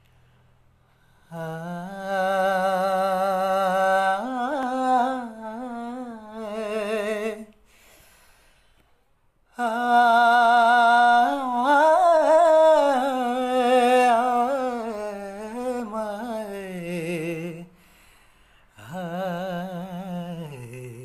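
A young man singing solo and unaccompanied, in long held notes with a wavering vibrato. He sings three phrases, with a pause of a second or two between each.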